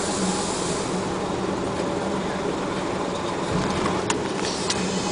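Dump truck's diesel engine running steadily, heard from inside the cab, with two sharp clicks about four seconds in.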